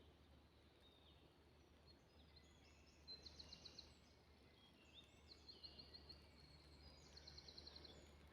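Faint birdsong: a small songbird sings a short, rapid trilled phrase three times, each about a second long, over a faint steady low hum.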